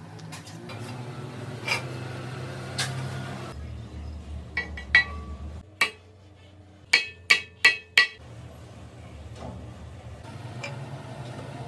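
Steel parts being struck, with sharp ringing metallic clinks: scattered single hits, then a quick run of four about seven seconds in. A low machine hum sits underneath.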